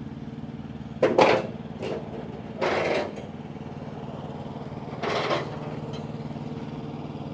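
A truck's engine idling steadily, with four short bursts of noise over it, the loudest about a second in.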